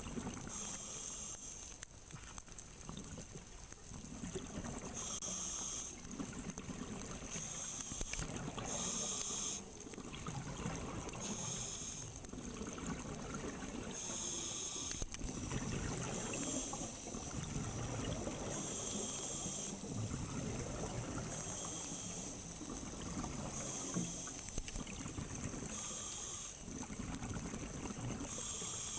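Scuba diver breathing through a demand regulator, heard from inside an underwater camera housing. A hiss of inhaled air comes every couple of seconds, with a low bubbling rumble of exhaled air between the breaths.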